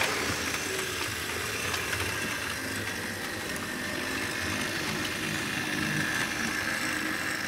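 Model train running on a model railway layout, a steady electric motor whine over the rumble of its wheels on the track.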